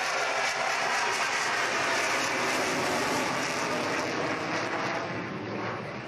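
Jet noise from an Avro Vulcan bomber's four Rolls-Royce Olympus turbojets as it passes overhead and climbs away. It is a loud, steady rushing noise that fades a little near the end.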